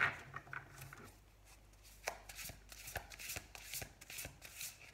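A deck of oracle cards being shuffled by hand: irregular soft clicks and rustles of the cards sliding together, with a brief quieter pause about a second in.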